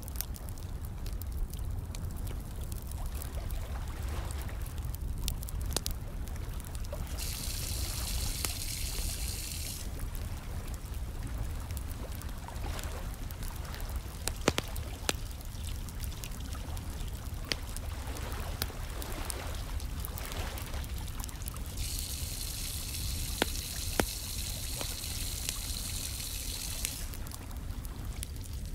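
Fire crackling with scattered sharp pops over a low steady rumble, mixed with trickling, running water. A hiss of pouring water comes in twice for a few seconds each.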